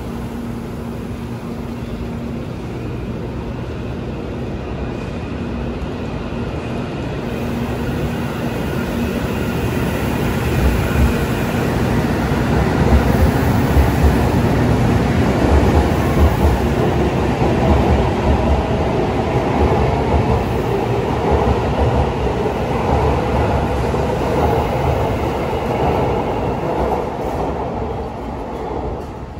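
Tokaido Shinkansen bullet train running along the station track, its rumble and motor hum growing louder to a peak around the middle, then slowly fading.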